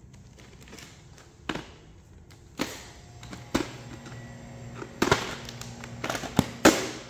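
Plastic VHS tape cases being handled, a series of sharp clacks and knocks, several in quick succession near the end.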